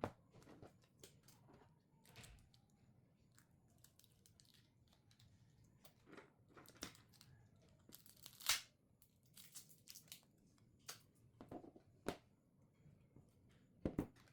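Faint handling sounds of a smartphone being taken apart for a battery replacement: scattered light clicks and taps of small tools and parts, with short scraping or peeling sounds, the longest about eight and a half seconds in.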